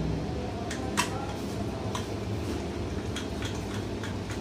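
Screwdriver working a screw on an LCD TV's power-supply board: a few sharp metallic clicks and taps, the loudest about a second in, over a steady low hum.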